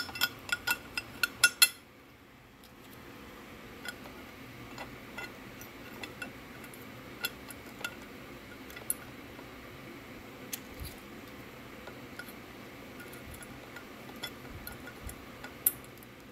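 Light metallic clicks and clinks as a small hose fitting is handled and threaded into a metal breather box: a quick run of sharp clicks in the first two seconds, then scattered single taps.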